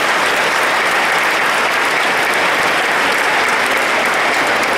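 Audience applauding: dense, steady clapping from many hands in a hall.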